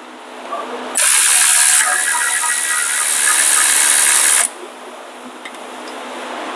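Air ratchet running for about three and a half seconds with a steady hiss, spinning out a bolt on the truck's rear brake caliper.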